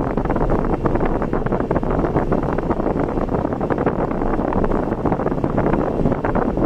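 Steady road and wind noise of a car driving, with a dense rumble and many small ticks throughout.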